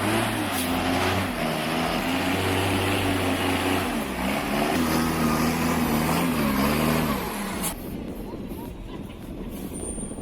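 Heavy truck engine labouring under load, its pitch rising and falling as it pushes. About eight seconds in it cuts off sharply to a quieter rumble.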